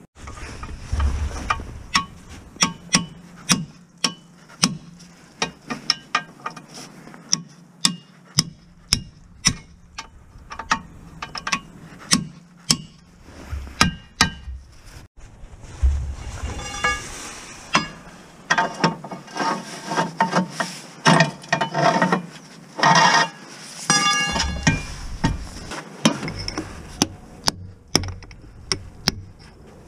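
Hammer blows on steel: a long run of sharp, ringing metal clanks, one or two a second, getting denser with more ringing in the second half.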